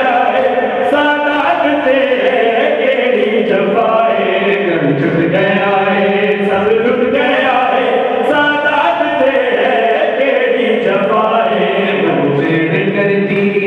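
A man singing a Punjabi noha, a Shia lament, into a microphone, unaccompanied, in a steady chanting line that runs on without a break.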